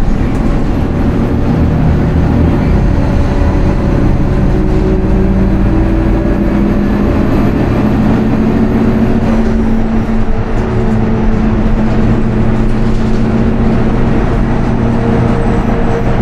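Interior sound of a 2018 Nova Bus LFS natural gas bus driving along: its Cummins ISL-G engine and ZF EcoLife automatic transmission running under way, a steady drone with road noise from the tyres. The engine note shifts to a new pitch about nine seconds in.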